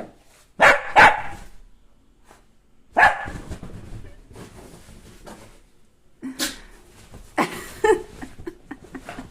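An excited dog barking in short separate barks, two near the start, one about three seconds in and a cluster of three near the end.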